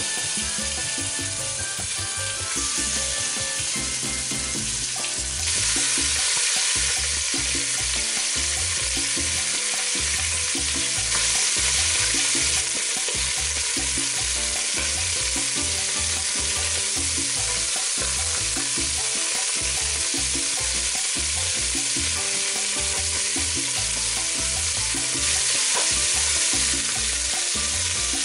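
Raw chicken pieces sizzling in hot oil in a stainless steel pot, with tongs moving them about. The sizzle steps up a few times as more pieces go into the oil.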